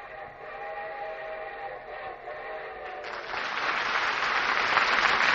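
A train whistle sounds a steady chord of several notes for about three seconds, then applause swells in sharply and carries on.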